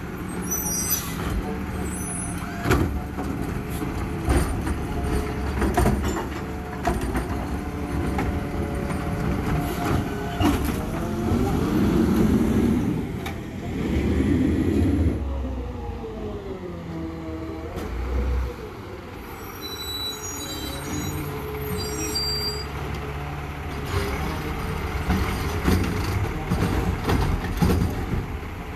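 Garbage truck at work with its engine running, scattered knocks and clanks, and a whine that slides in pitch around the middle of the stretch.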